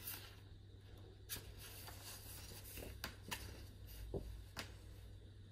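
Faint rustling of paper and several light ticks as the pages of a picture book are handled and turned open, over a low steady hum.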